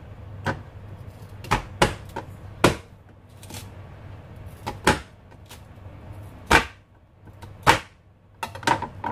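Kitchen knife chopping through a corn cob and striking the cutting board: about ten sharp knocks at uneven intervals.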